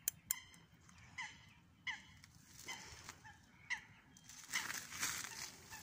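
Birds calling repeatedly, short calls that fall in pitch, about one a second. Two sharp clicks come right at the start, and there is a brief rush of noise about three-quarters of the way through.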